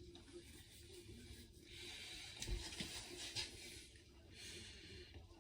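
Faint breathing through the nose, in two long breaths, with a soft low bump about halfway through.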